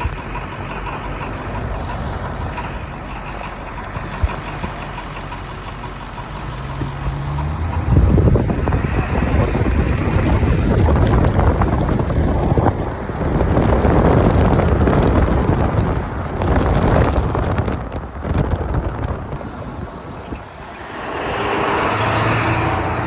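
Navistar T444E 7.3-litre V8 turbo diesel running with an uneven note that sounds like a misfire, or possibly just diesel knock. It runs steadily at first, then gets louder about eight seconds in and surges up and down.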